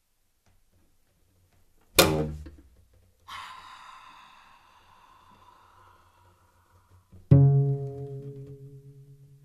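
Solo cello played with extended techniques, unbowed. About two seconds in comes a sharp percussive strike or snapped pluck that rings briefly. Then a high, airy sound fades over a few seconds, and near the end a loud low plucked note starts suddenly and rings slowly away.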